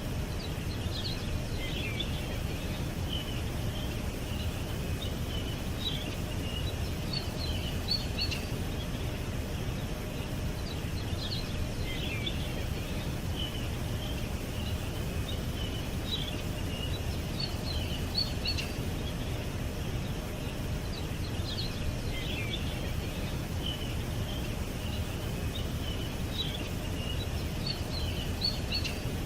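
Small birds chirping in quick clusters of short, high calls, the same pattern coming back about every five seconds, over a steady low background rumble.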